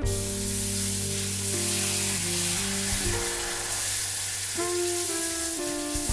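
Hot water being poured into a pan of hot sautéed flour, hissing and sizzling steadily as it is stirred in, over background music.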